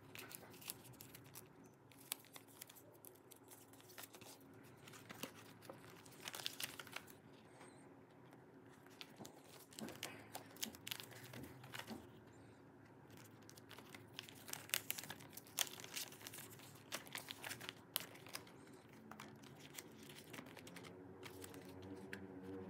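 Clear plastic photocard binder sleeves crinkling as pages are turned and handled, in irregular soft rustles and clicks, with a faint steady low hum underneath.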